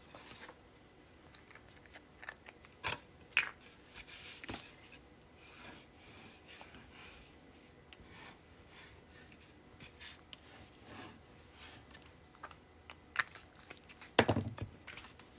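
The tip of a liquid glue bottle scratching and rubbing along cardstock as lines of glue are drawn, with light paper handling and small clicks. A dull thump about fourteen seconds in, as something is set down on the table.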